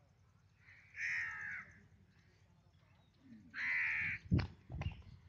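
A crow cawing twice, a harsh call of about half a second each time, the second about two and a half seconds after the first. Just after the second call come a few low thumps.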